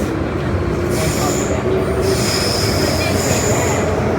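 MTR Island Line Metro-Cammell M-Train electric multiple unit running, heard from inside the car: a steady rumble, with high-pitched wheel squeal coming and going from about a second in.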